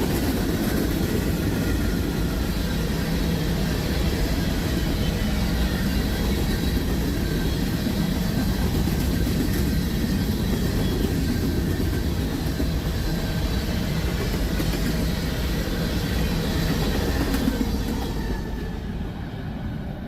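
Freight train's loaded sand cars rolling past, a steady wheel-on-rail noise that dies away near the end as the last cars clear the crossing.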